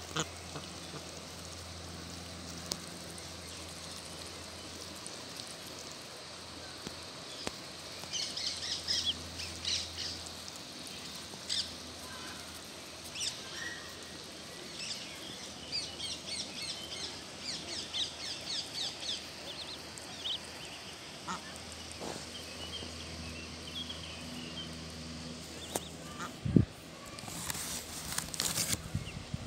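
Egyptian geese with their goslings calling as they graze: short, high-pitched peeps, often in quick runs. Near the end there is a loud thump, then rustling.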